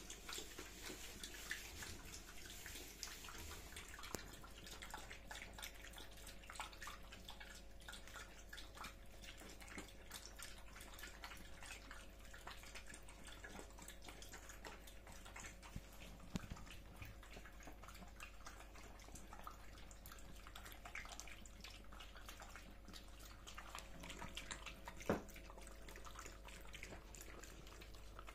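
Two Jack Russell terriers eating wet food from bowls: faint, wet chewing, smacking and licking made of many small clicks, with a faint steady hum under it and one sharper click near the end.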